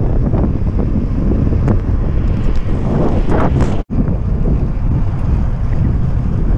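Heavy wind buffeting the microphone of a camera riding on a moving bicycle: a steady low rumble that cuts out for an instant just under four seconds in.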